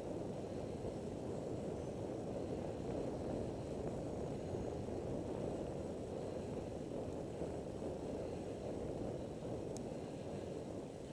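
Steady low rushing noise of a bicycle ride: wind and road noise, with one faint short click near the end.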